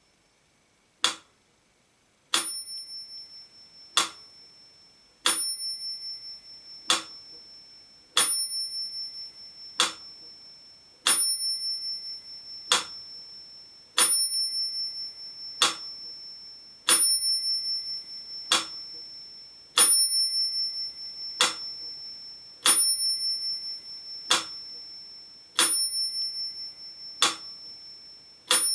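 Mechanical pyramid metronome ticking at 40 beats a minute, a sharp tick about every second and a half. From about two seconds in, its bell rings on every second tick, marking two beats to the bar, each ring fading slowly under the next tick.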